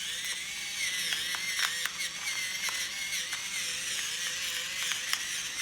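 Electric pepper grinder running, a small motor whirring steadily with a slightly wavering pitch and scattered sharp clicks as it grinds pepper.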